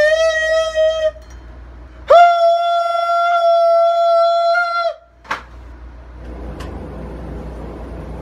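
A man singing a loud, steady high note, around the E above middle C's octave (about 660 Hz), straight into a crystal wine glass to set it resonating so it shatters: a short held note of about a second, then a longer one of about three seconds that stops abruptly, followed by a single click.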